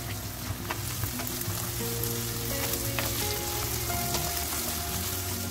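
Chopped vegetables (carrot, onion and bell pepper) sizzling as they fry in oil in a metal pan, stirred with a spatula that gives scattered sharp clicks and scrapes against the pan.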